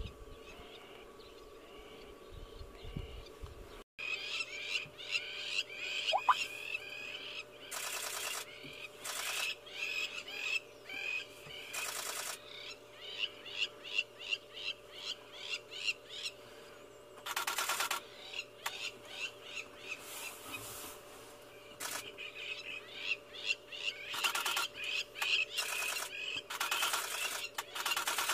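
Crowned lapwings calling over and over in short, high, repeated notes, with a brief break about four seconds in. Several short bursts of rapid clicks cut in and out, over a low steady hum.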